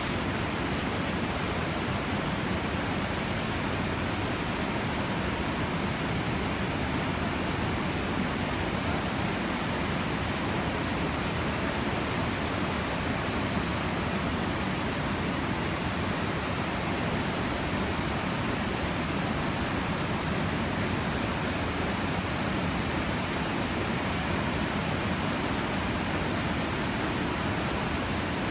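Steady rushing noise of the Iguazu Falls waterfalls and the churning whitewater river below them, an even noise without breaks.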